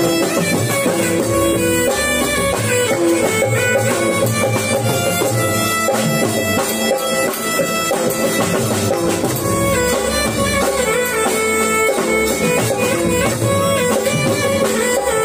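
Instrumental music from a live devotional kirtan band: an electronic keyboard carrying a sustained melody over a steady drum rhythm.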